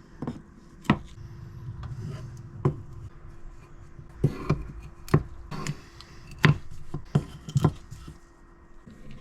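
Wooden boards knocking and tapping together at irregular intervals as hardwood strips are handled and set up for a glue-up, about seven sharp knocks, with a faint steady hum underneath.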